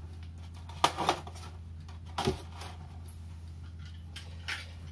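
Cardboard packaging being handled, with a few sharp light knocks: two close together about a second in, one just after two seconds and a fainter one near the end. Under it runs a steady low hum.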